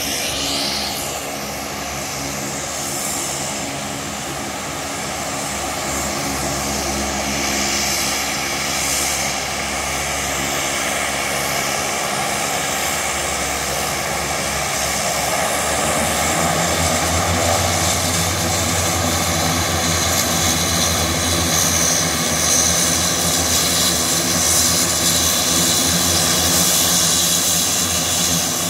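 CASA C-212 Aviocar's twin Garrett TPE331 turboprop engines running while the aircraft taxis in toward the stand: a steady propeller drone with a high turbine whine. Both grow louder as the aircraft approaches, most from about halfway through.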